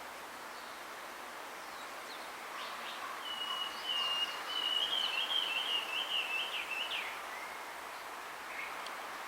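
Male blue rock thrush singing one warbling phrase about four seconds long, starting about two and a half seconds in, over a steady background hiss. It is the song a male gives to attract a female.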